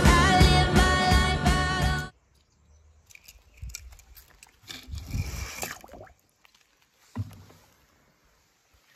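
Music playing, which cuts off suddenly about two seconds in. It is followed by faint, irregular handling noises and a single soft knock about seven seconds in.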